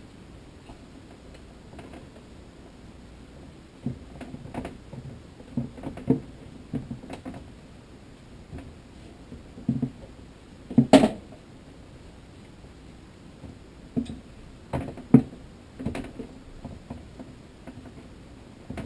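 Hands working pizza dough around the edge of a metal baking tray: scattered soft taps and knocks against the tray, starting a few seconds in, with two sharper knocks, one about halfway through and one near the three-quarter mark.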